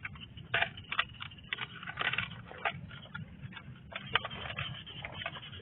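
Rustling and scraping handling noise as a loudspeaker's cable is wound up by hand, broken by a few sharp clicks.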